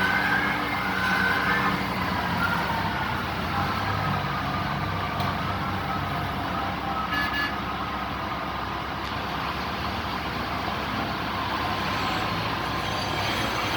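Large diesel mining haul truck engine running steadily, a deep hum with a faint high whine over it.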